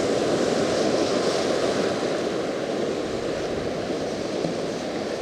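Ocean surf washing on the beach, a steady rush of water that eases slightly toward the end.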